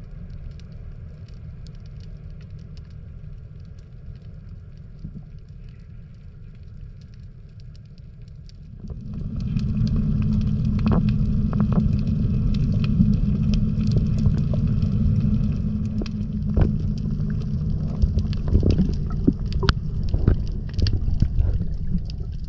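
Low mechanical drone of a ship's engine heard underwater through the water, with a steady hum in it; it jumps clearly louder about nine seconds in. Scattered sharp clicks and crackles sound over it in the second half.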